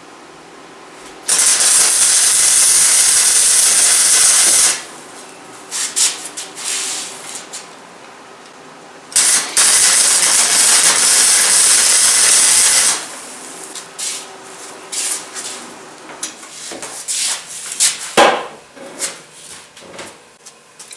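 Electric arc welding on steel: two welds of about three and a half seconds each, each a loud steady hiss, several seconds apart. Short knocks and clicks follow near the end.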